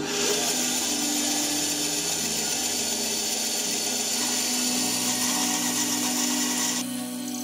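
Band saw cutting through a small wood blank: a steady, loud, high-pitched rasp of the blade in the wood. The cutting sound starts abruptly and stops near the end.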